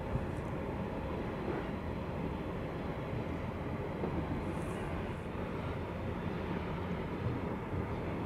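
The engines of the ferry Mercandia IV running under way, a steady low rumble.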